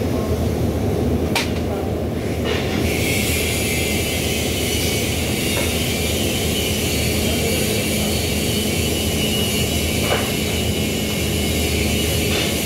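Steady low hum of workshop background noise, joined about three seconds in by a steady high hiss, with a sharp click about a second in and a faint knock later on.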